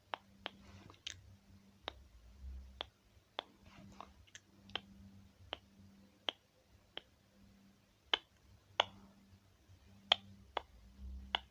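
Sharp, irregular clicks and taps close to the microphone, roughly one or two a second, over a faint low hum.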